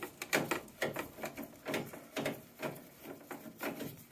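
Gloved hands handling parts inside a gas combi boiler: a run of irregular small clicks and knocks of plastic and metal pieces being moved and fitted.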